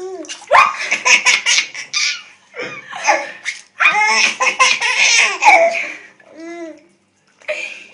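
A baby laughing in repeated bursts, with a short pause near the end.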